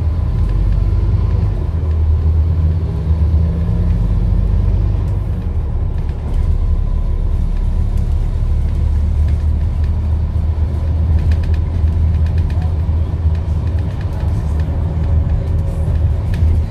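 Scania N230UD double-decker bus's five-cylinder diesel engine running, a steady low rumble with a faint whine over it. A short run of light ticks comes about eleven seconds in.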